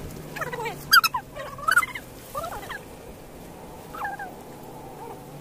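Short, gliding bird calls, about five of them, over a low steady hum.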